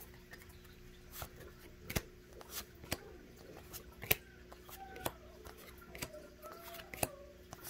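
Pokémon trading cards being flipped through one at a time in the hands, each card giving a sharp snap, roughly one a second, over a low steady hum.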